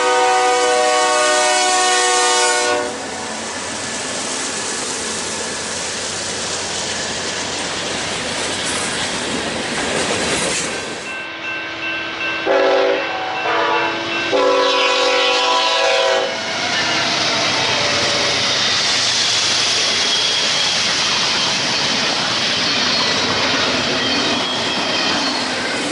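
Locomotive air horn sounding a chord that cuts off about three seconds in, followed by the steady rumble of a train rolling past. Around twelve seconds in the horn sounds again in a few short broken blasts and then one longer blast, after which the passing train's noise turns brighter and hissier.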